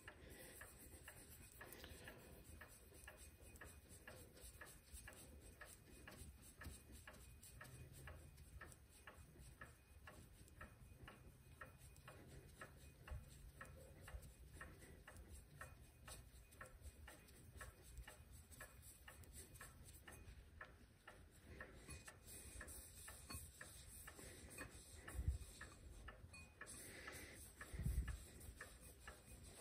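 Faint, steady ticking of a mechanical clock, with two soft thumps near the end.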